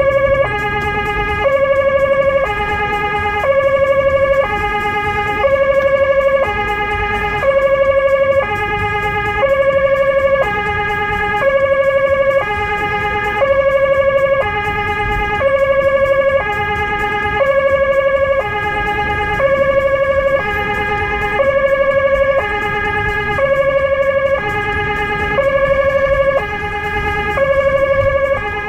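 Two-tone emergency-vehicle siren heard from inside the car's cabin, switching steadily between a high and a low note, each held a little under a second.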